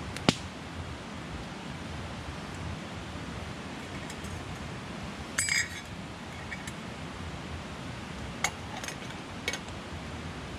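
Metal clinks of a knife blade and a metal lid against a stainless steel camping mug: a sharp tap just after the start, a brief ringing clink about five and a half seconds in, and a few light clicks near the end as the lid goes on. A steady outdoor hiss lies under them.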